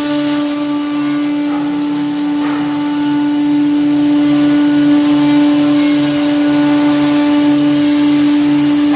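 Woodworking sawing machine running: a steady motor hum with a low throb pulsing about twice a second underneath.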